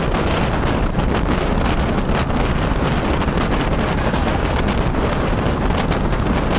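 Steady wind rushing over the microphone, mixed with the running noise of a moving passenger train.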